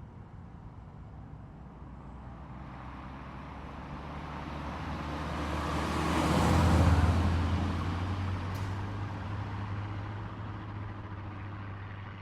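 A car driving past: its engine and tyre noise swell as it approaches, are loudest about six to seven seconds in, and fade as it moves away, leaving a steady low engine hum.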